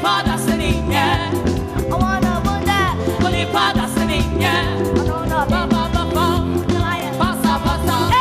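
A song performed live on stage: a singing voice over a full band with a steady beat.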